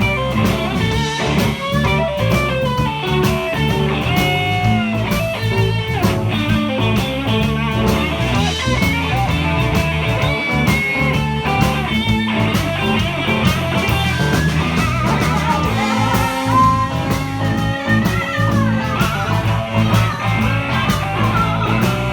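Live blues band playing a swinging instrumental passage: a bending guitar lead over a stepping bass line and steady drums.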